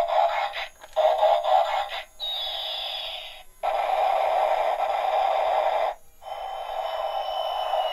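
Battery-powered transforming Airbus toy playing electronic music and sound effects through its small speaker as it changes between plane and robot: choppy tinny bits at first, a falling whistle-like glide about two seconds in, then longer steady stretches broken by brief gaps.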